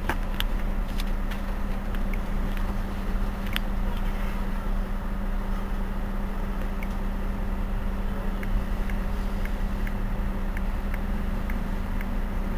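Mercedes-Benz Citaro C2 city bus idling while stopped, a steady, even engine hum with no revving. A faint, regular light ticking comes in partway through.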